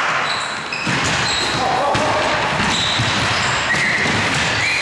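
Basketball game on an indoor court: the ball bouncing, short high squeaks and players' voices calling out.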